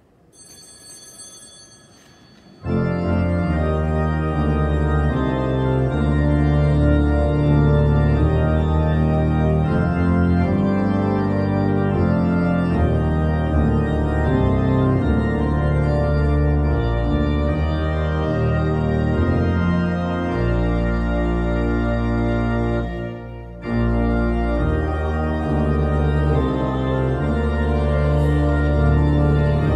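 Church organ playing sustained chords as entrance music for Mass, starting loudly about two and a half seconds in, with a brief break between phrases late on. Before the organ enters there is a short high ringing tone.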